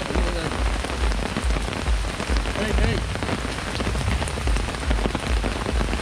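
Heavy rain pattering steadily, a dense hiss of many small drop strikes, with irregular low thumps underneath.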